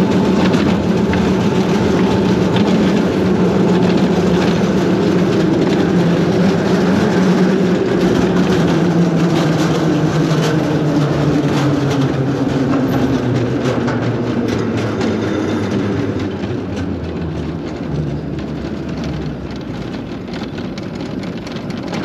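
Wiegand Bobkart sled running down a stainless-steel trough track, its wheels rumbling with a steady drone. The drone slowly falls in pitch and the noise eases off in the last third as the sled slows toward the end of the run.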